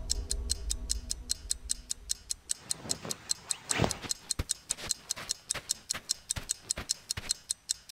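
Rapid, even clock-like ticking, about five ticks a second, with a few heavier knocks in the middle. It stops abruptly at the end. A low music drone fades out under the ticking over the first couple of seconds.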